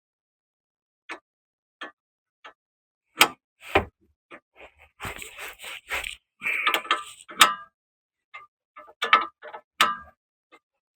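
Hand tools working on the car's rear suspension: scattered metallic clicks and knocks, with a run of quick, evenly spaced ratchet-like clicks about halfway through, as the new stabilizer link is fitted and its nuts are worked on.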